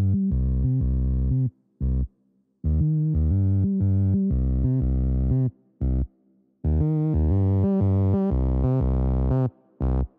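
Background music: synthesizer and bass notes in a rhythmic pattern, cutting out into brief silences three times.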